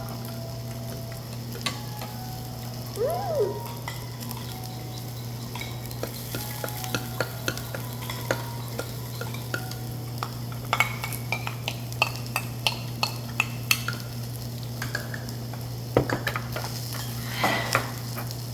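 Meat sizzling on a tabletop grill, with many sharp clicks of utensils against the grill and dishes, over a steady low hum.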